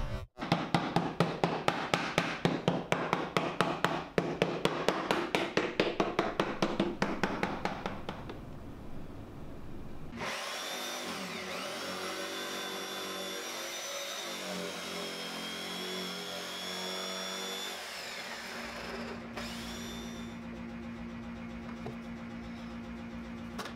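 A fast, regular run of sharp knocks for the first eight seconds or so. Then a jigsaw cuts through plywood, its motor whining steadily for about eight seconds before it stops. A low steady hum follows.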